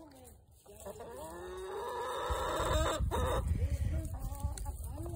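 Chickens clucking and calling, with one long call that rises and falls starting about a second in, then shorter calls. A low rumble comes in a little over two seconds in.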